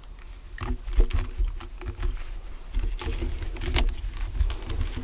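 A person crawling into a narrow tunnel over sand and debris: irregular scuffs, scrapes and knocks, with bumps and low rumbling of the handled camera.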